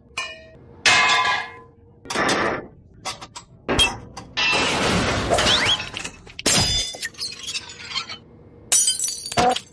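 A string of separate sound-effect crashes and impacts, about seven in all, each struck suddenly and followed by a short ringing tail, some like glass breaking; the longest, a noisy shattering crash, runs nearly two seconds in the middle.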